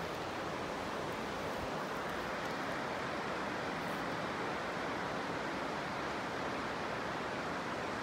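Shallow mountain stream rushing over rocks, a steady, even rush of water.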